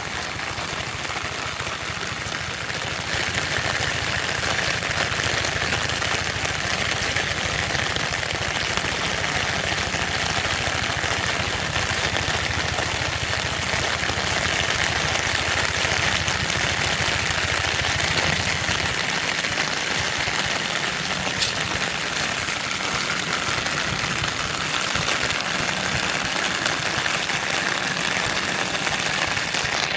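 Heavy rain falling steadily, an even hiss that grows a little louder about three seconds in. A low steady rumble runs underneath and stops about two-thirds of the way through.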